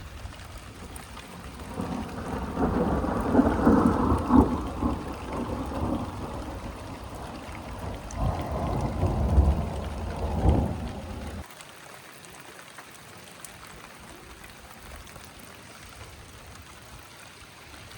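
Heavy rain falling in a thunderstorm, with thunder rumbling loudly in two swells before the rumble cuts off suddenly about two-thirds of the way through. Steady rain hiss continues after it.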